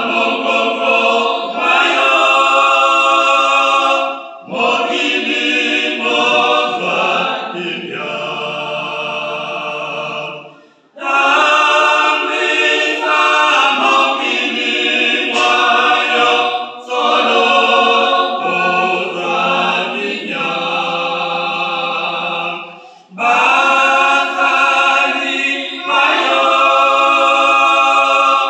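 A small mixed choir of women and men singing a gospel hymn a cappella, in phrases of a few seconds with brief breaks between them.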